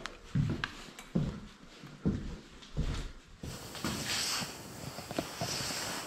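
Footsteps on a hard floor, about one every 0.6 to 0.8 seconds, then rustling and handling noise close to the microphone from about halfway through.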